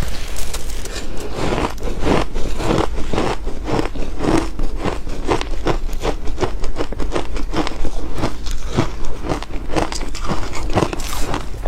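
Ice being bitten and chewed in a steady run of crunches, about three or four a second.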